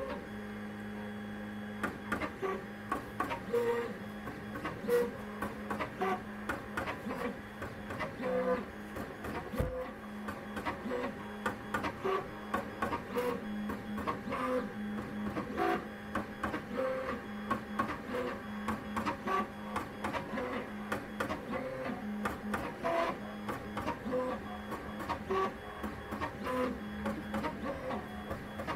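Monoprice Mini Delta delta 3D printer running its multi-point auto-levelling routine: the stepper motors make short whirring moves with clicks as the effector probes point after point across the bed. A steady low hum runs underneath.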